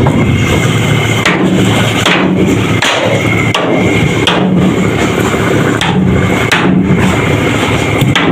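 Irregular sharp knocks, roughly one a second, over the steady drone of a running engine.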